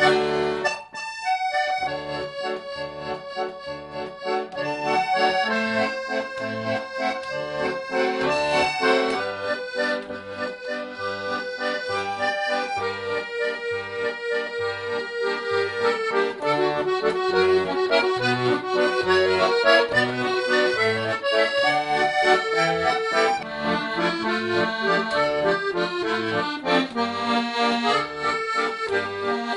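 Instrumental accordion music: a melody of held notes over an evenly repeating bass and chord accompaniment.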